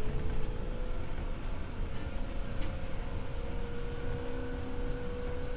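A Seibu 301 series resistance-controlled electric train running, heard from inside a motor car: a steady rumble of wheels and running gear, with a faint steady tone above it.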